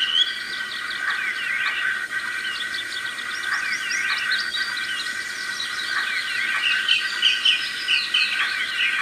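Daytime birdsong ambience, many small birds chirping and warbling over a steady high background hum, played from the model locomotive's ESU LokSound Micro DCC sound decoder as its F10 function. It comes through a tiny speaker, with almost no low end.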